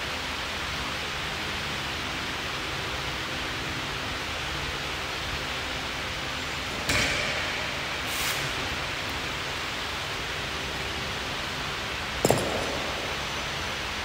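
Steady hiss of gym fans. It is broken by a scuffing clatter about seven seconds in, a softer one near eight seconds, and a sharp knock with a short ring about twelve seconds in, as the weightlifting belt is dropped on the rubber floor.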